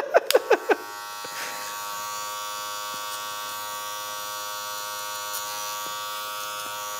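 A man laughing for the first second, then an electric hair clipper switched on and running with a steady buzz.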